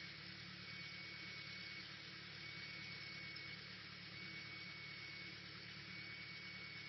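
Cessna 152's Lycoming four-cylinder engine running at low taxi power: a steady, muffled drone under an even hiss, with a faint constant high tone.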